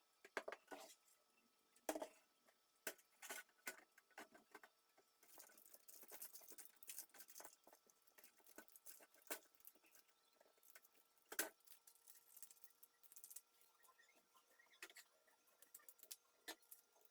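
Faint, irregular clicks, taps and scraping of computer parts being handled and fitted by hand during a PC assembly, with a louder click about two seconds in and another near the middle.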